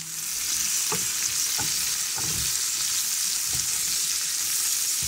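Sliced vegetables (broccoli, carrots, onion) sizzling in a hot frying pan while a wooden spatula stirs them. The sizzle grows louder in the first half-second, and there are four soft knocks of the spatula against the pan.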